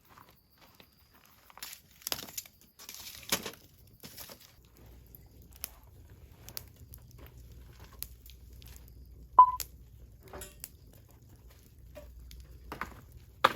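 Rustling, crinkling and scattered clicks and knocks of fire-building materials being handled, with one short, sharp, bright clink about nine seconds in.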